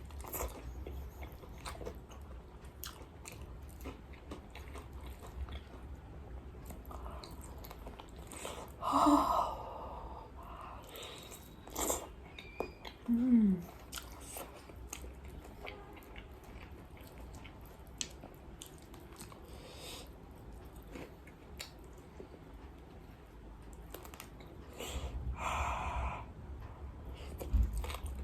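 Close-up chewing and biting of crispy fried chicken: a steady run of small, sharp crunches, with a few louder bites about 9, 12 and 13 seconds in and again near the end.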